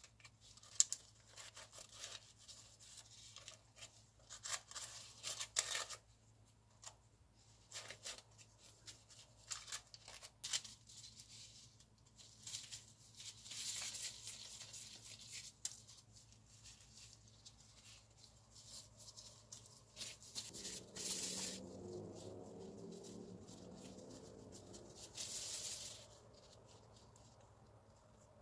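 Faint crinkling and rustling of parchment paper and a plastic bag, with small taps and rubs, as gloved hands handle and shape bread roll dough. The longest rustles come about halfway through and again near the end.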